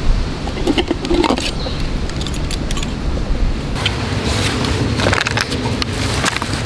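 Small clicks and rustles of a stainless steel camping mug with a red sleeve being handled, busiest in the second half, over a steady low outdoor rumble.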